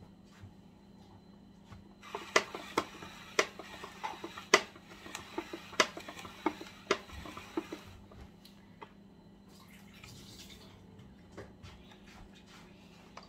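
Hand-cranked plastic spiralizer cutting a carrot into spirals: a run of crisp clicks and crunching from about two seconds in, lasting about six seconds, then only a few faint ticks.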